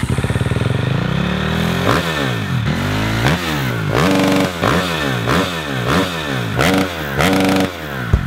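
Motorcycle engine revving: the pitch climbs over the first couple of seconds, then the throttle is blipped again and again, the engine note rising and falling about once every two-thirds of a second, and it cuts off suddenly near the end.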